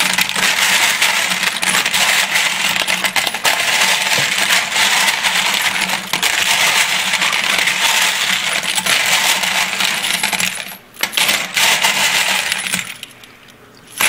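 Spent brass cartridge cases clinking and jingling against each other as a gloved hand stirs and rubs them together in a bowl of soapy cleaning water, hand-washing the brass. The dense metallic jingle pauses briefly about eleven seconds in, resumes, then stops near the end.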